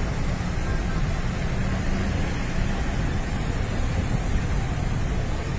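Steady low rumble of car traffic and idling engines, with no distinct single event standing out.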